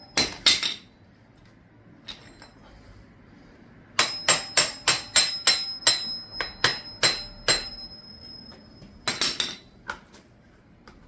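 Hammer striking metal: a couple of blows, then a quick run of about ten ringing strikes, about three a second, and a few more near the end.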